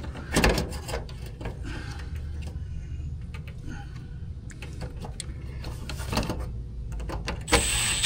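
Scattered small clicks and knocks of wires and metal parts being handled during contactor rewiring, over a steady low rumble.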